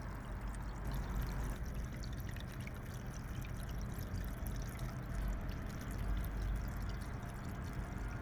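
Water trickling steadily from a lantern-style decorative fountain, its pump-circulated flow spilling over the stones into the basin.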